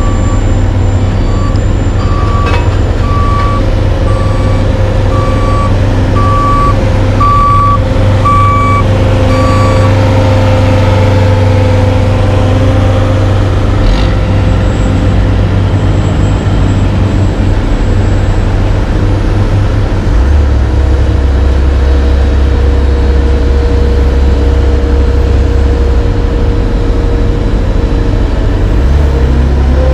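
Heavy diesel engines of a dump truck and an asphalt paver running steadily while asphalt is tipped into the paver, with a backup alarm beeping about once a second for the first ten seconds. The low engine sound changes about twenty seconds in as a pneumatic-tyred roller moves in.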